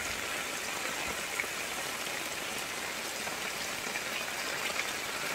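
Steady rush of heavy rain and floodwater flowing along a street.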